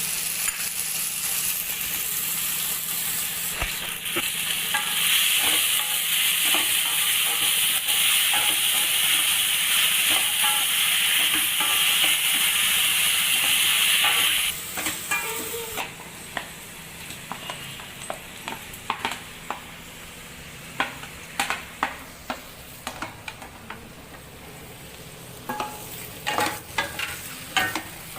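Food sizzling in hot oil in a pan. About fourteen seconds in, the sizzle stops suddenly, and a utensil clicks and scrapes against the pan as the food is stirred.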